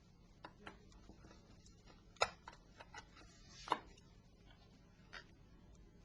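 Small sharp clicks and taps of tools and metal and plastic parts during hand disassembly of a Nokia 3650 phone, coming irregularly, with two louder clicks a little over two seconds in and near the middle.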